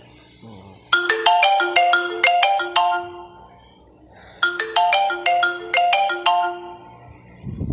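Phone ringtone: a short marimba-like melody of quick struck notes, played twice with a pause between.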